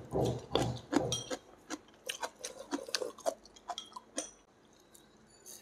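A person gnawing and chewing steamed chicken off the bone with the fingers: a run of short wet smacks and clicks from the mouth and fingers, thinning out and stopping about four and a half seconds in.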